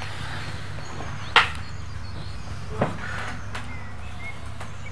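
Two sharp knocks over a steady low hum, the first and louder about a second and a half in, the second about a second and a half later.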